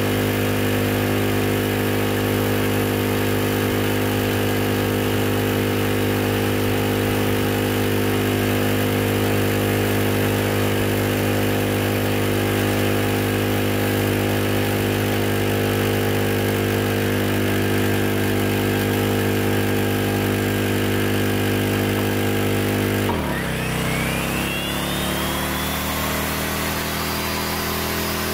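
Champion portable generator's single-cylinder engine running steadily. About 23 seconds in, a 13-amp electric miter saw is switched on: its motor whine rises as it spins up, while the generator's engine note dips sharply under the sudden load and then partly recovers.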